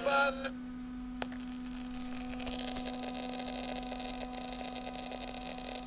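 Crackling static from the speaker of a Becker Europa car radio with the volume turned down, over a steady hum, after a short loud burst right at the start; the crackle swells from about two seconds in. The crackle is a fault that is not supposed to be there, which the repairer suspects is a noisy transistor in the amplifier stage.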